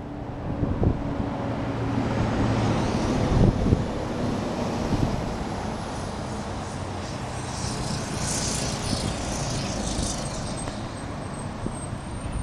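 Vehicle traffic noise with wind on the microphone. A low engine hum is stronger over the first few seconds.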